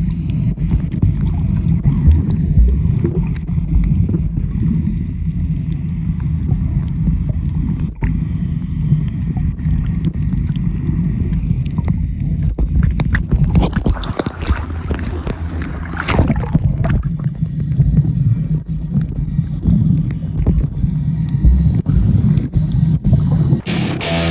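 Boat engine running under way, a steady low rumble with wind buffeting the microphone. About halfway through, a louder hissing rush sweeps over it for a few seconds.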